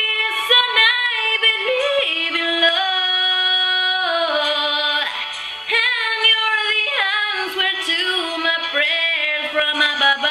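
A woman's voice singing a wordless melodic passage of held notes and pitch glides over music.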